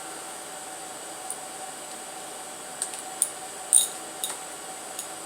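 A handful of short, sharp metallic clinks of hand tools on the engine, the loudest a little before the four-second mark, over a steady background hiss.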